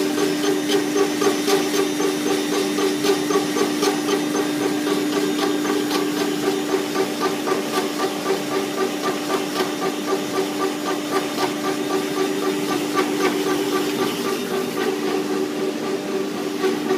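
5-axis CNC brush tufting machine running: a steady motor hum under a rapid, even beat of tufting strokes with light clicks.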